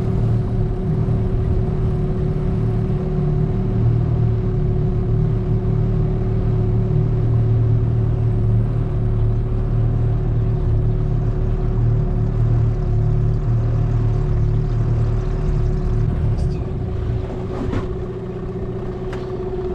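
Small boat's outboard motor running steadily at slow trolling speed, a low hum with a steady higher tone over it. The low part of the sound eases off about sixteen seconds in, and a few faint clicks come near the end.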